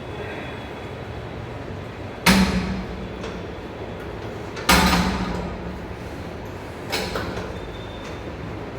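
Gym equipment clanking three times, two loud strikes and a softer third, each dying away over about a second.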